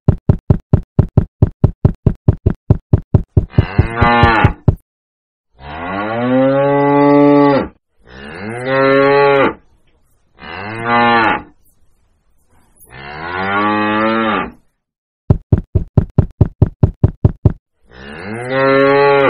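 Cattle mooing: about six long moos, each rising and then falling in pitch. A run of quick, even taps, about five a second, comes at the start and again in the middle.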